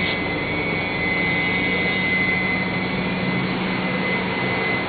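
Steady drone of running machinery, an even noise with a high whine and a low hum that hold level throughout.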